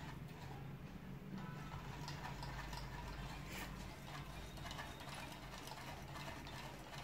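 Homemade Stirling engine made from a Monster Energy can running, its wire crankshaft and CD flywheel turning with a rapid, light ticking rattle that thickens about a second in.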